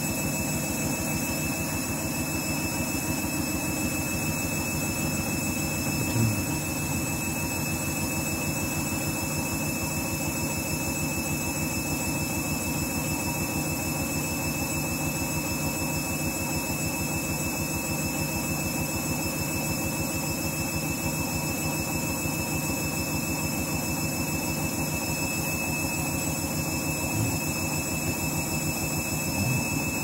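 Candy front-loading washing machine tumbling its drum through water on a rinse: a steady motor hum and whine with water sloshing, and a brief knock about six seconds in.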